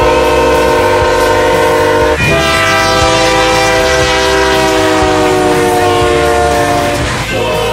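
Diesel freight locomotive air horns sounding multi-note chords: one long blast, cut at about two seconds into a second horn's chord that holds for about five seconds, its pitch sagging slightly as the locomotive goes by.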